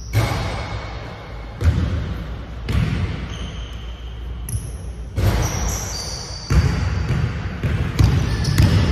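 Basketballs bouncing on a hardwood gym floor, each bounce echoing in the large hall. The bounces come irregularly, a second or more apart, and bunch closer together near the end as a player dribbles.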